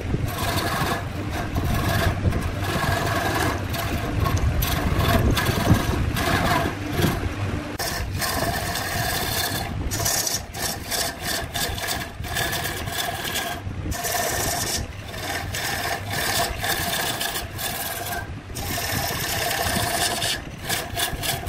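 Turning tool cutting into a spinning wooden vessel on a wood lathe: a continuous rasping scrape of wood being shaved away, broken by a few brief dips where the cut eases.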